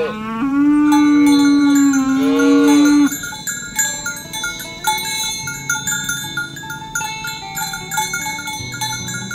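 A cow mooing in one long, loud call that ends about three seconds in. After it comes background music of bell-like chiming notes.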